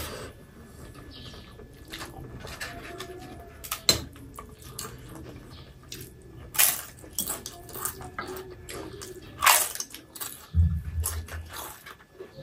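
Close-up eating sounds: chewing and wet smacking as rice and curry are eaten by hand, broken by sharp crunches and clicks now and then as a crisp papad is bitten.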